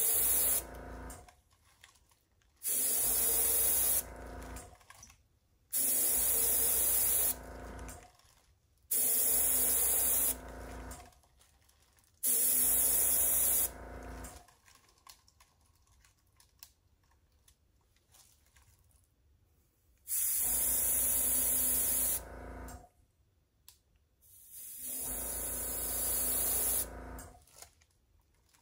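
Short blasts of air from a handheld metal air nozzle, blowing wet acrylic pour paint outward. There are about seven hissing blasts, each one to two seconds long, and each starts and stops abruptly.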